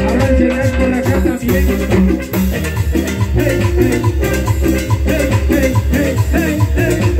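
Loud Latin tropical dance music through loudspeakers, with a steady driving beat.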